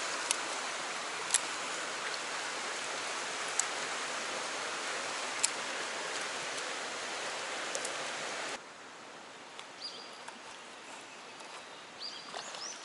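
Strong river current rushing past a concrete bank, a steady rush of water with a few sharp clicks. About eight and a half seconds in it drops away suddenly to a quieter water sound, with a few faint high chirps.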